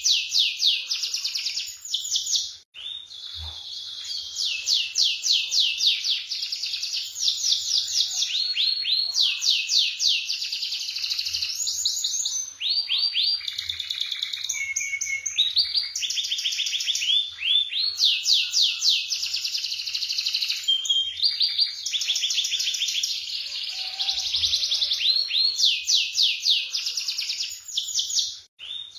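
Canary singing a long, continuous song of rapid trills and rolls, one fast-repeated phrase after another. The song breaks off briefly about three seconds in and again near the end.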